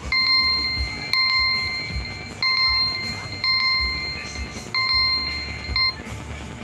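Xiaomi Redmi 13 smartphone's clock alarm tone sounding: a steady, high electronic beep repeated five times, each about a second long with brief gaps, stopping about six seconds in.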